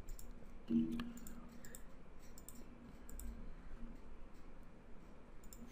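Faint, irregular clicking from computer use while switching to a web page, with a short low tone just under a second in.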